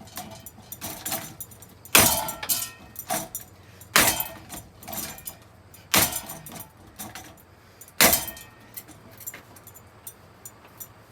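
Four hard clattering knocks about two seconds apart on a ceiling fan being smashed, each ringing briefly, with lighter rattling and clinking of loose parts between them.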